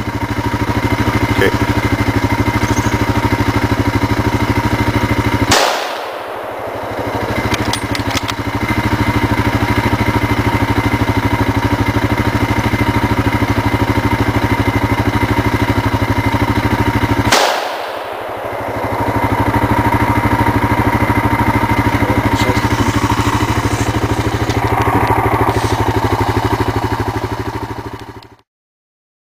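Two hunting-rifle shots about twelve seconds apart, each a single sharp crack, over a steady idling engine.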